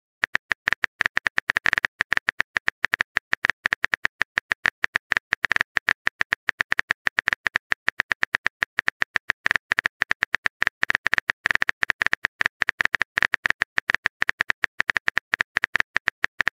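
Phone keyboard typing clicks from a texting-story app: a rapid, steady run of short sharp taps as a message is typed out.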